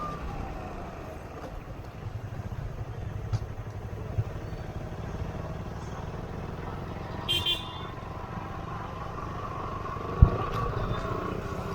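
Motorcycle running steadily on the road, with wind and road noise on an action camera's built-in microphone. A vehicle horn gives two short toots about seven seconds in, and there is a single sharp thump near the end.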